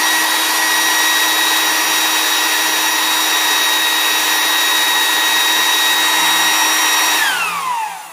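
Electric inflator air pump running at full speed: a loud, steady rush of air over a high motor whine. Near the end it is switched off and the whine falls away as the motor winds down.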